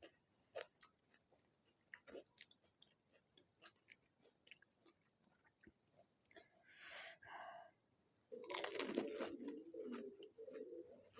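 Chewing and crunching of panipuri: crisp puri shells cracking in the mouth as small scattered crackles, with a louder, denser stretch of crunching from about eight seconds in.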